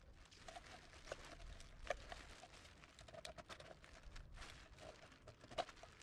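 Black plastic rubbish bag rustling and crinkling, with scattered sharp clicks and knocks as litter, including a metal can, is pushed into it. The loudest clicks come about two seconds in and again near the end.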